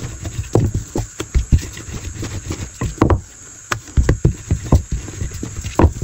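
Wooden rolling pin rolling out a thin sheet of dough: an irregular run of dull thumps and knocks as the pin rolls and taps against the work surface.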